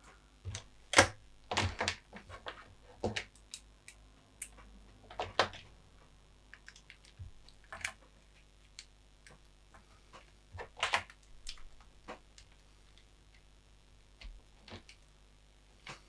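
Irregular clicks and light clatter of test leads being handled: plastic banana plugs and alligator clips knocking against each other and the workbench. A few sharper clicks stand out, about a second in, around five seconds and around eleven seconds.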